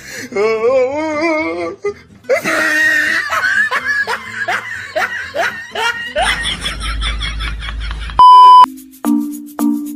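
Dubbed comedy sound effects: a wavering, warbling voice, then laughter in repeated falling bursts and a low rumbling noise. A short, very loud beep sounds about eight seconds in, followed by the first notes of a bouncy tune.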